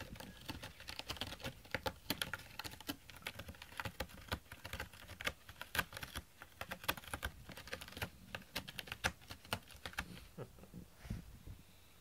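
A cat clawing a corrugated cardboard scratcher: rapid, irregular rasping scratches that stop about ten seconds in.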